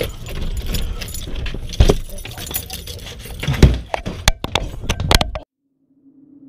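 Keys jangling and clicking at a door lock, with knocks and rumble from rough handling of the camera. Several sharp clicks come in quick succession near the end. The sound then cuts off suddenly about five and a half seconds in.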